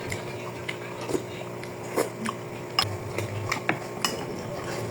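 Eating utensils clinking against dishes in several short, irregular clinks.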